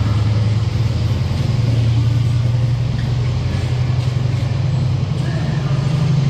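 Colas Rail Freight diesel locomotive running under power as it hauls a train of bulk tank wagons, a loud steady low engine drone that rises slightly in pitch near the end.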